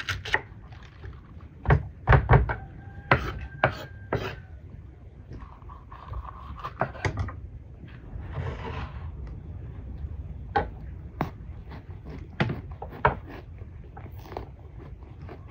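Knife coring bell peppers against a wooden cutting board: irregular sharp clicks and knocks, with a few loud thuds about two seconds in.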